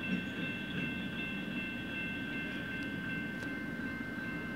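Railroad grade-crossing warning bells ringing steadily as the crossing gates come down, over a low rumble.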